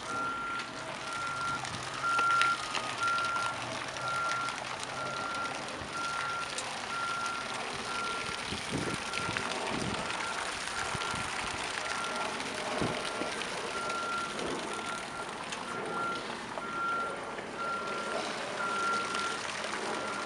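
A vehicle's reversing alarm beeping at a steady pitch, about two beeps a second, over constant outdoor background noise, with a few dull knocks about halfway through.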